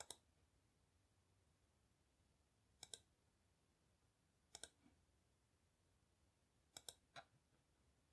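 Faint clicks of a computer mouse button: four short clusters a second or two apart, each a quick pair of ticks.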